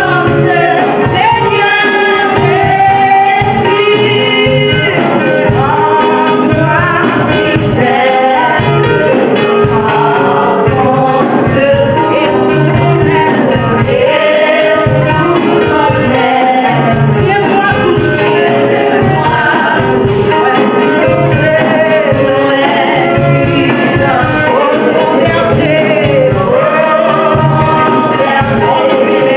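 Gospel praise song: a woman sings lead into a microphone over musical accompaniment with a steady beat.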